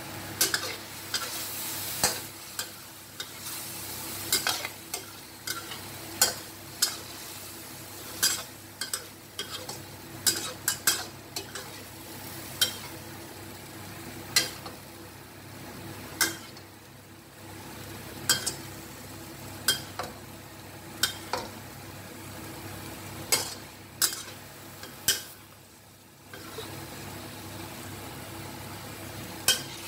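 Chicken pieces, mushrooms and onion sizzling in oyster sauce in a pan, stirred with a metal spatula that clinks and scrapes against the pan about once a second.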